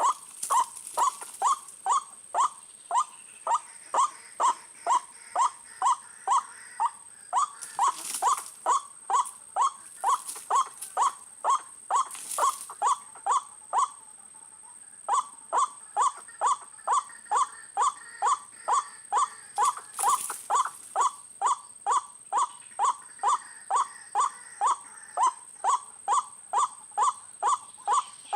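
White-breasted waterhen calling: short, harsh calls repeated evenly about twice a second, with one brief break about halfway through, over a steady high-pitched whine.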